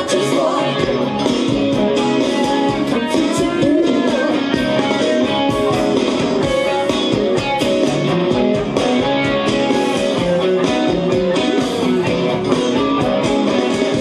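Electric guitar playing lead lines over a full band backing track with a steady drum beat.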